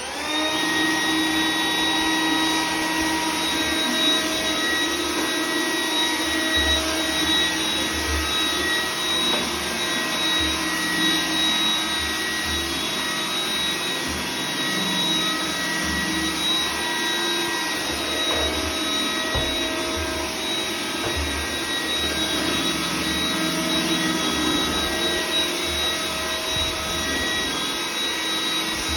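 iRobot Roomba 980 robot vacuum running a cleaning pass: its motor spins up at the very start, then a steady high whine over the uneven whir and rumble of its brushes on the floor.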